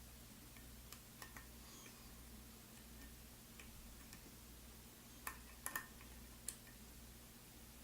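Faint, scattered small metallic clicks of a lock pick working the pins inside an Alfa (GeGe) oval lock cylinder during picking, with a few sharper clicks a little past the middle.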